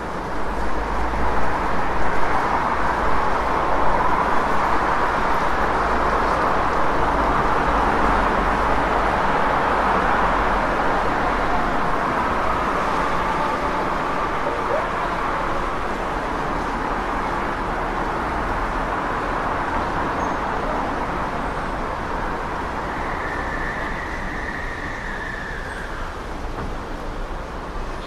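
City street traffic: a steady wash of passing vehicles, louder in the first few seconds and easing off slowly. A faint high-pitched tone sounds briefly near the end.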